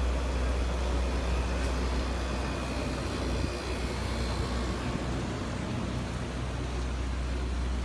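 A car driving along, with a steady low rumble of engine and road noise heard from inside the cabin.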